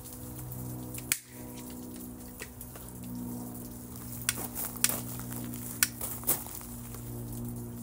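Steady hum of the pool pump's electric motor, with a few sharp plastic clicks from a handheld tubing cutter being handled.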